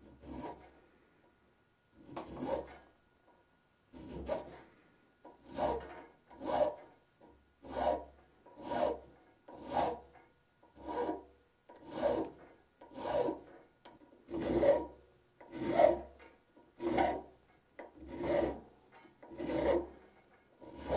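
Flat hand file scraping across the edge of a metal washer clamped in a bench vise, in repeated strokes, a couple of seconds apart at first, then about one a second. The washer is being filed into a screwdriver bit for tightening split nuts.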